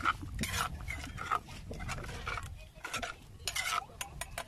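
Metal spoon stirring and scraping around a liquid mix in an earthenware bowl: a run of short, irregular scrapes and clinks against the clay.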